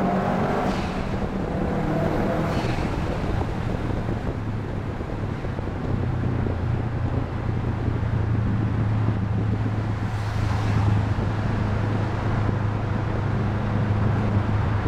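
Subaru EJ20 flat-four engine with its catalytic converter removed and a Fujitsubo exhaust box, heard from inside the car while driving through a road tunnel, over steady road and wind noise. The engine note shifts in the first few seconds, then settles into a steady low drone at cruising revs from about six seconds in.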